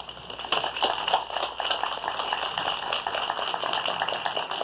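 Audience applauding: a steady run of many quick claps.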